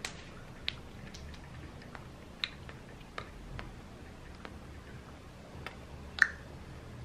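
Scattered soft clicks and taps from two people signing in American Sign Language, over a low room hum. The clicks come irregularly, about one a second, and the sharpest falls about six seconds in.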